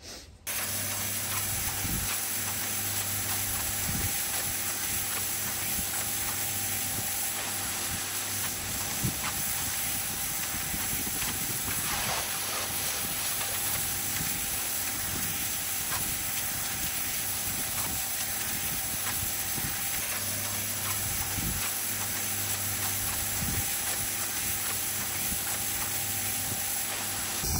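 Pressure washer blasting a wet stone patio: a steady hiss of the water jet, with the machine's motor humming underneath.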